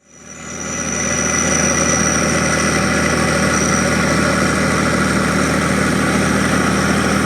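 Cat Challenger MT865C tracked tractor's diesel engine running at a steady speed, fading in over the first second, with a thin high whine above the engine note.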